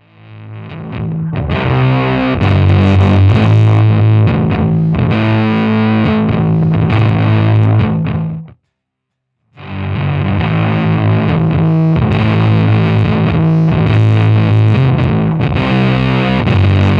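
Fender Precision Bass played through a Fuzzrocious Heliotropic fuzz pedal, heavily distorted riffing together with a drum kit. It swells in from quiet at the start, breaks off to silence for about a second just past the middle, then comes straight back in.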